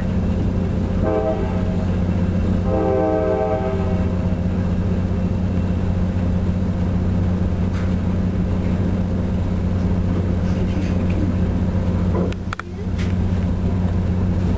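Diesel locomotive horn of the train giving a short blast and then a longer one within the first four seconds, the grade-crossing signal, over the train's steady low rumble.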